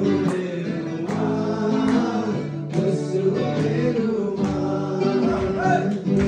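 Acoustic guitar strummed in a steady rhythm while people sing along, a live song.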